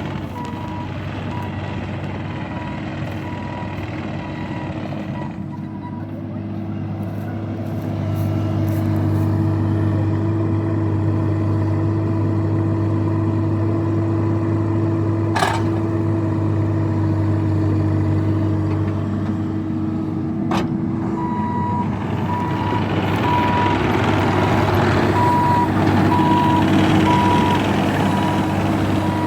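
Diesel work machine running steadily, louder from about eight seconds in, with a backup alarm beeping steadily at the start and again from about twenty seconds on. Two sharp knocks sound in between.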